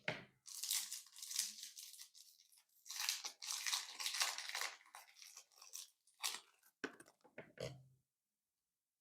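Clear slime being worked by hand with real candy pieces mixed in, giving a dense crunching crackle. It is followed by a few separate short pops, and it stops abruptly near the end.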